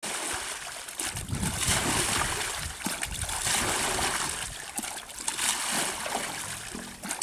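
Muddy water splashing and pouring as a plastic basin is scooped through shallow pond water and tipped out, in uneven surges.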